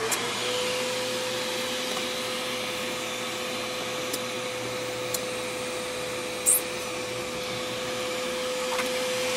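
Vacuum cleaner winding up to speed right at the start, then running steadily with a constant motor hum and rush of air. A few sharp ticks come through partway in.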